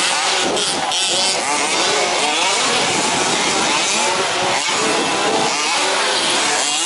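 Several 1/5th-scale two-stroke petrol RC 4WD truck engines racing together, their high buzzing notes overlapping and revving up and down as the trucks work around the track.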